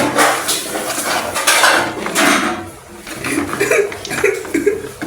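Metal utensil scraping and clattering against a cooking pot, in a run of repeated strokes that grow quieter about halfway through.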